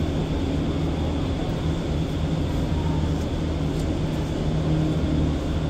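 Steady low mechanical drone with a constant pitched hum and even overtones, like engines or machinery running.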